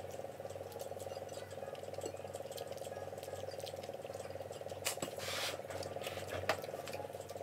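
A steady low hum runs throughout, with a few faint clicks and a short rustle about five seconds in from rice and dried fish being eaten by hand off a plate.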